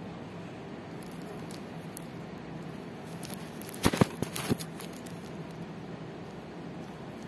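Handling noise: a cluster of small sharp clicks and taps about four seconds in, with a few fainter clicks before it, over a steady low hiss.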